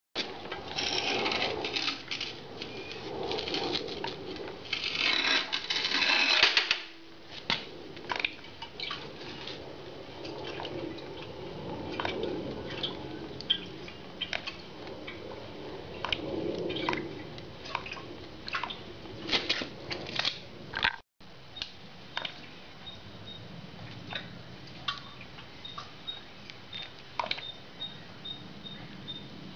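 Old fork oil draining from a Harley-Davidson Sportster's front fork leg into a plastic drain pan. It runs as a steady splatter for about the first seven seconds, then turns into scattered drips and light clicks.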